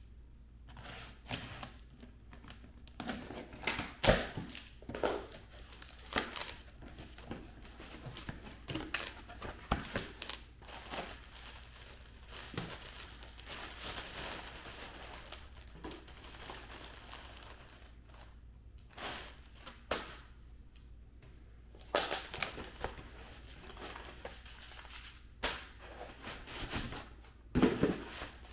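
A cardboard shipping box being unpacked: packing tape torn, cardboard flaps and a foam insert handled, and a plastic bag crinkling. The sounds come in irregular rustles and tears, the loudest about four seconds in and again near the end.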